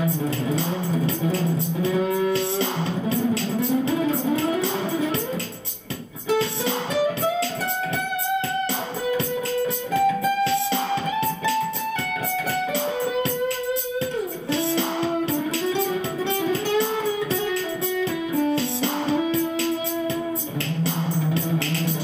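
Instrumental music: an acoustic guitar played through an overdrive pedal into a small clean amp, a melody of held notes with sliding rises and falls between them.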